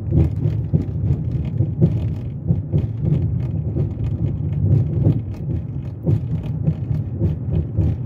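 Front left suspension of a 2006 Chrysler 300 clunking repeatedly in short, irregular knocks as the car drives slowly, over a steady low rumble heard from inside the cabin. The mechanic suspects worn stabilizer links and sway bar bushings, a common failure on these cars.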